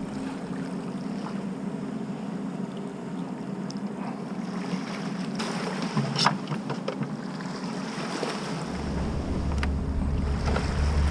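Steady low drone of a ship's engine on the river, over a haze of wind and water. A few sharp clicks come about six seconds in, and a deep wind rumble on the microphone sets in near the end.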